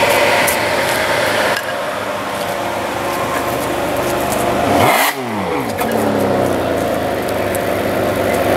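Ferrari 599 GTB Fiorano's V12 engine running at low speed, with one quick rev about five seconds in that rises and falls sharply before it settles back to a steady low rumble.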